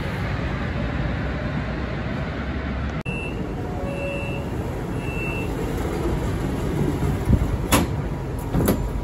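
Beijing Subway Line 15 train moving along the platform with a steady rumble. After a cut, a door-closing warning beeps three times about a second apart, and the train and platform screen doors knock shut near the end.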